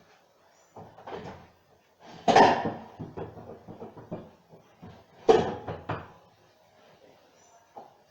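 Hard knocks and clattering of parts or tools being handled during a washing machine repair. Two loud clanks, about three seconds apart, each trail off in smaller rattles, with a few quieter knocks around them.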